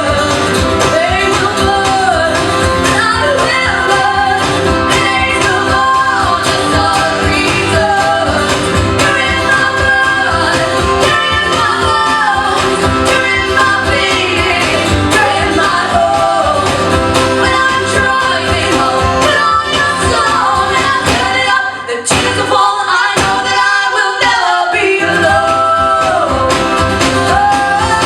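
Live folk song: women's voices singing with acoustic guitar accompaniment. About 22 seconds in, the low accompaniment drops out for a few seconds while the singing carries on.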